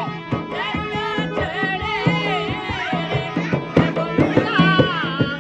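Live folk devotional bhajan: a male singer's ornamented, wavering melody over hand-drum strokes, with the drumming growing denser and louder in the second half.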